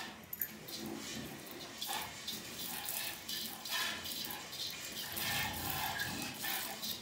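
A cow being milked by hand: streams of milk squirt in quick, repeated spurts into a steel pail that already holds milk.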